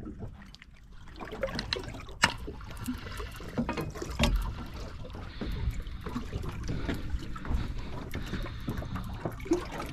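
Water lapping against the hull of a small drifting boat, with wind rumbling on the microphone. A few sharp knocks sound on board, the clearest about two and four seconds in.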